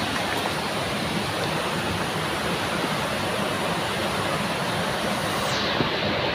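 Steady rushing of flowing stream water, briefly duller near the end.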